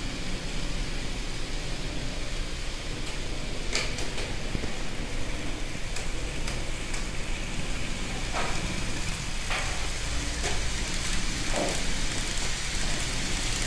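Model trains running on the layout's track: a steady rolling hiss and rumble, with a few light clicks.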